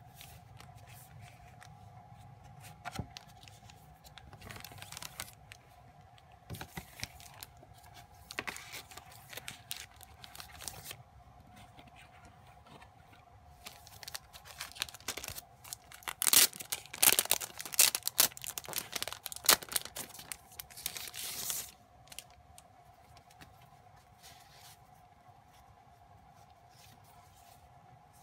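Hands handling merchandise packaging: a cardboard box and clear plastic sleeves rustling, with a few seconds of loud plastic crinkling past the middle that stops abruptly.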